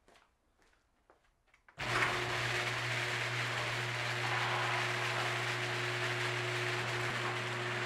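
Electric garage door opener starting abruptly about two seconds in and running steadily with a low motor hum as it raises the sectional garage door.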